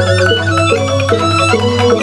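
Balinese gamelan ensemble playing a tabuh petegak, an instrumental piece: quick interlocking bronze metallophone notes over a kendang drum and bamboo suling flutes, with a low gong tone sustaining underneath.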